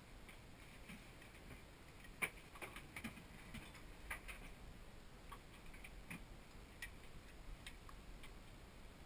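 Faint, irregular small clicks and taps of hands handling diving gear, about a dozen spread unevenly, the loudest about two seconds in.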